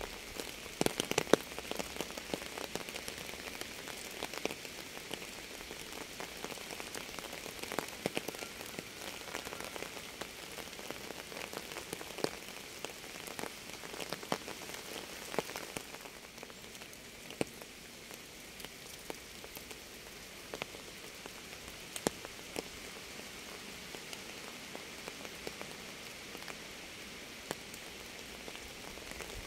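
Steady rain falling, with many separate drops ticking on a hard surface; a cluster of louder drops about a second in.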